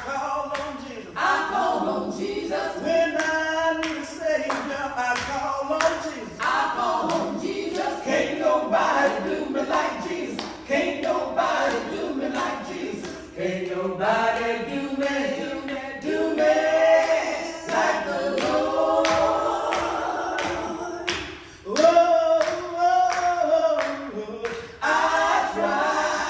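A small praise team of gospel singers singing together into microphones, voices carrying the melody with no instruments standing out. Hand-claps keep a steady beat at about two a second.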